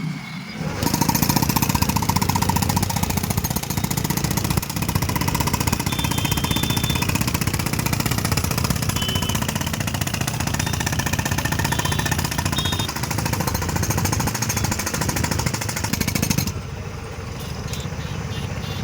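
Jackhammer running in a fast continuous hammering, starting just under a second in and cutting off near the end, typical of repair work breaking up a bridge surface.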